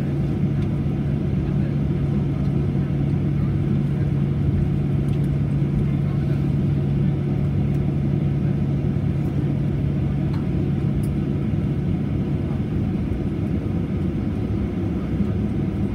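Cabin noise of a Boeing 737-800 taxiing after landing: a steady low rumble and hum from its CFM56-7B engines, heard inside the cabin by the engine. The hum eases somewhat about halfway through.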